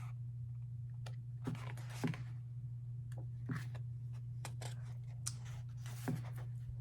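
Album photobook and paper inclusions being handled and leafed through: scattered paper rustles and light clicks at irregular moments, over a steady low hum.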